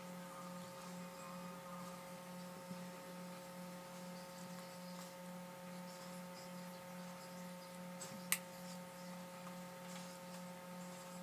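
Steady low electrical hum with a few fainter, higher steady tones over it, and a single sharp click about eight seconds in.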